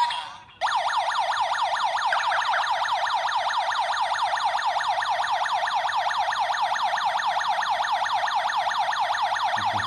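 Electronic siren of a Tuya smart home alarm system sounding a fast, repeating falling wail that starts about half a second in and runs on steadily. It is the intruder alarm, set off by the motion sensor detecting movement.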